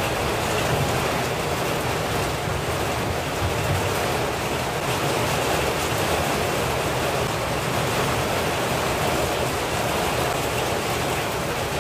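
Heavy rain pouring down: a steady, loud hiss with no let-up.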